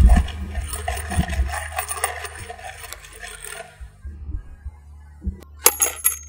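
Background music with a deep bass fades out, then near the end a quarter drops into a cup with a few quick, bright metallic clinks.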